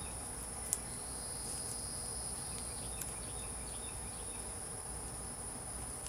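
Outdoor insects giving a steady, high-pitched drone, with a second, lower steady tone joining about a second and a half in. A faint click or two sounds over it.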